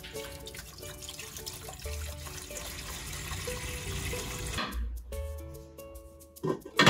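Water pouring from a plastic jug into a cooking pot, a steady splashing stream that stops after about four and a half seconds. Near the end, two sharp clinks as a glass pot lid is set on the pot.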